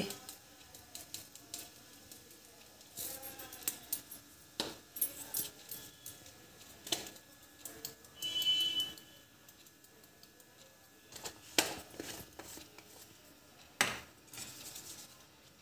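Small glass spice jars clicking and clinking as they are handled and shaken over the pan, with a few sharper knocks spread through.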